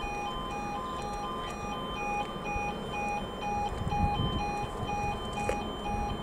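Railway level crossing warning alarm sounding continuously: a high and a low note alternating about twice a second. A low rumble builds about four seconds in.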